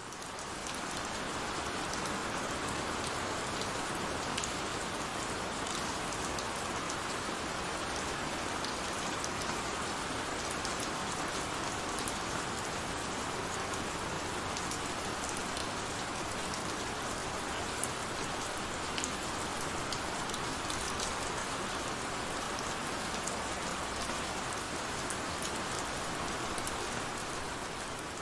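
Heavy rain falling steadily: a dense, even hiss sprinkled with many small drop ticks. It swells up from silence just at the start and begins to fade near the end.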